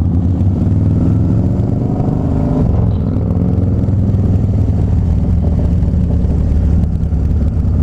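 Harley-Davidson Dyna Street Bob's V-twin engine under way, its pitch rising as it accelerates over the first couple of seconds, then running steadily.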